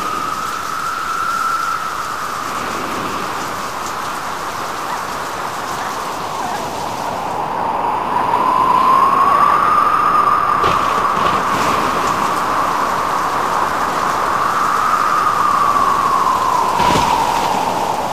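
Storm at sea: howling wind whose pitch slowly rises and falls over a steady rush of rain and spray, with a sudden crash near the end.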